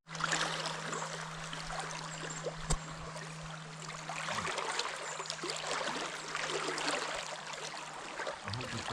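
River water rushing, a steady hiss, with a steady low hum underneath that stops about eight seconds in.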